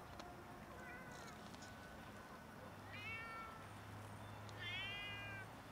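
Hungry stray cats meowing: a faint meow about a second in, then two clearer meows around three and five seconds, each rising then falling in pitch, the last one the loudest.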